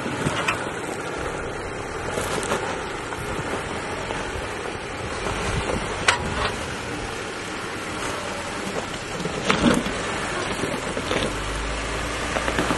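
Jeep Gladiator crawling over boulders: the engine runs at low speed under steady wind noise on the microphone. A sharp knock comes about six seconds in and another near ten seconds, as the tyres and underbody work over the rock.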